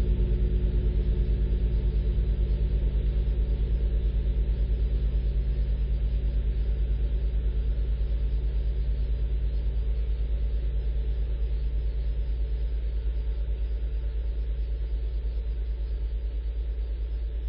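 Deep hum of a giant bell dying away after a strike, a recreation of the Tsar Bell. Several low steady tones waver with a fast pulsing beat and fade slowly.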